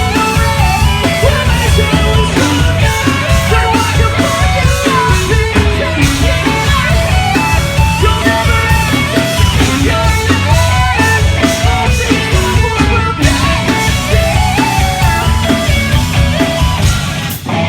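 Live rock band playing loud, with electric guitar over a heavy low end of bass and drums. The sound dips briefly just before the end.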